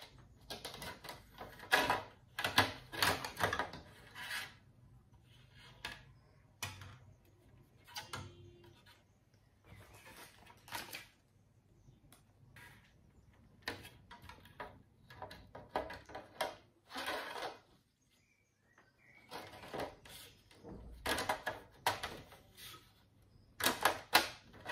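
White plastic grille and housing parts of a Xiaomi Mi Smart Standing Fan 2 Lite being handled and fitted together during assembly: an irregular clatter of plastic clicks, knocks and scrapes, coming in clusters with short quiet gaps between them.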